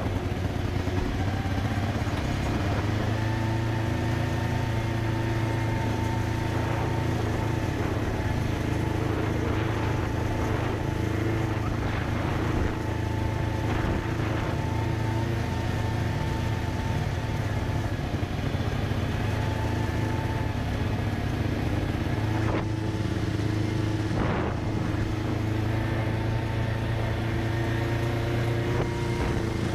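A vehicle's engine running at a steady speed while driving, with a few brief knocks and rattles.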